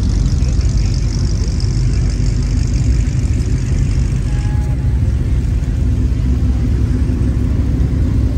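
A car engine idling steadily, a continuous low rumble.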